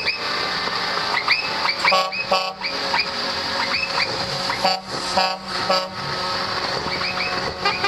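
Trucks sounding their air horns in many short toots, some in quick pairs, over the steady running of the passing truck engines.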